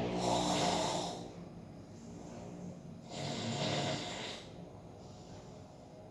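A person snoring loudly, with two snoring breaths about three seconds apart; the first ends in a low rattling buzz.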